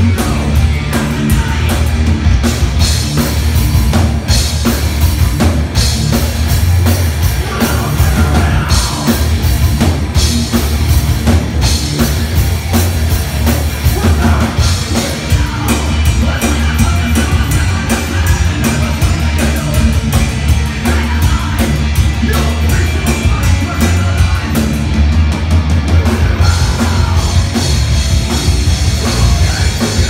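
Live metal band playing loud and without a break: pounding drums and crashing cymbals, distorted electric guitar and bass, and a singer's vocals over the top.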